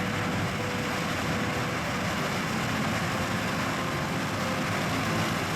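John Deere S780 combine harvesting corn, its 13.5-litre six-cylinder diesel and threshing machinery running in a steady, even drone with a faint steady whine.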